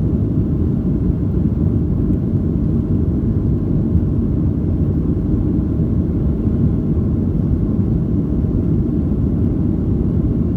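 Steady cabin rumble of a Boeing 737-700 in its climb after takeoff, from the CFM56-7B engines and the airflow over the fuselage, deep and unchanging.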